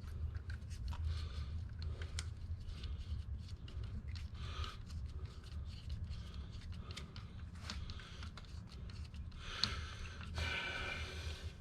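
Hand tools and metal and plastic engine parts being handled: scattered clicks and scrapes over a steady low hum, with a louder rustle near the end.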